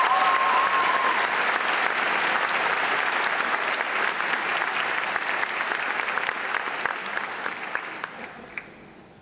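Audience applause in a large hall. One voice cheers briefly in the first second, and the clapping fades away over the last couple of seconds.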